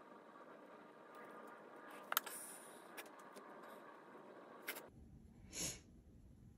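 Faint handling sounds of seasoning being pinched from a small glass bowl and rubbed onto raw chicken breasts in a glass baking dish: a few light clicks and taps, the sharpest about two seconds in, over quiet room tone. Near the end comes a short falling swish.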